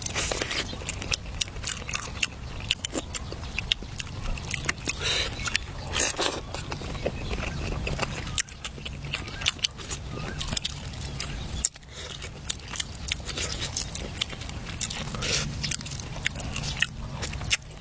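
A person biting and chewing food close to the microphone, with many small irregular clicks and crunches.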